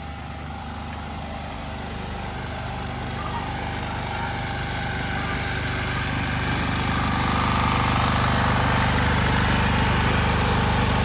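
Small portable petrol generator running steadily, growing louder over the first several seconds and then holding level.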